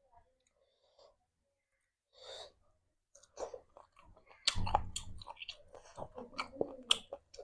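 Close-miked chewing of curry and rice, with wet mouth clicks and lip smacks, starting about three seconds in after a nearly quiet stretch. A short, louder low sound comes about four and a half seconds in.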